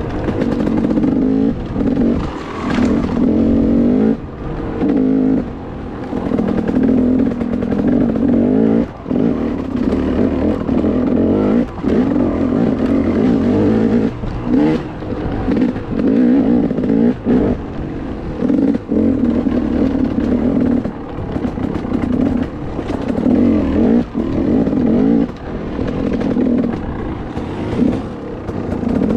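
Dirt bike engine revving up and dropping back over and over as the throttle is worked over rocky ground. The sound is broken every couple of seconds by short cut-offs and sharp knocks.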